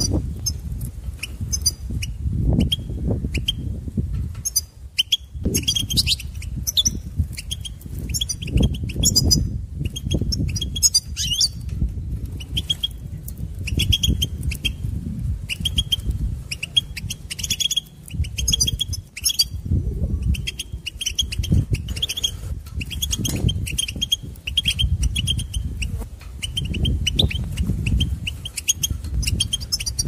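European goldfinch singing: a rapid, continuous twittering of high chirps, over an irregular low rumble.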